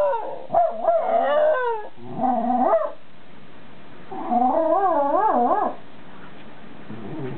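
A white Shiba Inu and a Jack Russell Terrier howling. There are a few short howls and yips that slide up and down, then one longer, wavering howl about four to six seconds in.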